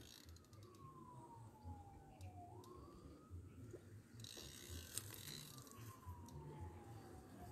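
Near silence with a faint siren wailing, its pitch sliding slowly down twice with a short rise between.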